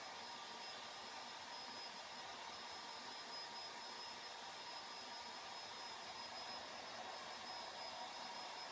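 Hair dryer blowing steadily, a constant rush of air with a thin high whine from its motor.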